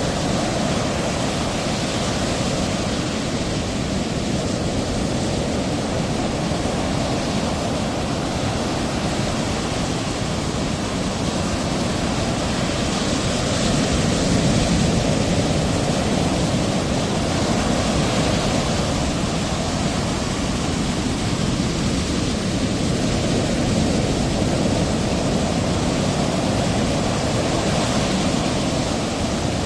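Steady rushing noise of ocean surf breaking, swelling a little about halfway through.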